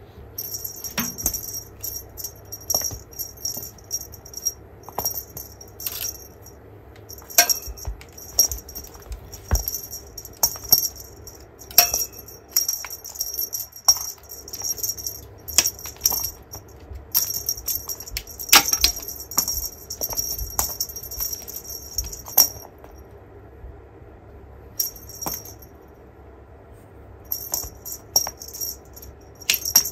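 A small cat-toy bell jingling in stretches of a few seconds as the toy is waved and batted, mixed with light taps and knocks of paws and toy on the floor mat. The jingling falls quiet for a few seconds near the end, then starts again.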